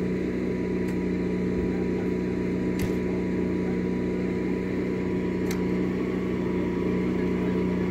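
A motor running steadily: a constant low drone with a faint steady higher tone above it, and a few faint clicks.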